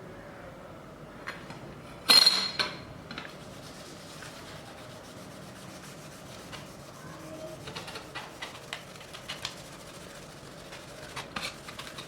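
Metal parts being handled: one loud metallic clank about two seconds in that rings briefly, followed later by scattered light taps and clicks.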